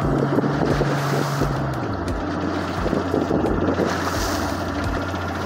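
Small boat's motor running under way, with wind on the microphone and water rushing past the hull; about two seconds in the engine note drops to a lower steady hum as it throttles back.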